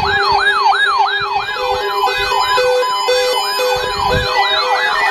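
Dozens of NOAA weather radios sounding their warning alarms together for the weekly test. Steady tones are layered with a siren-like falling sweep that repeats three or four times a second, and short repeating beeps join in about a second and a half in.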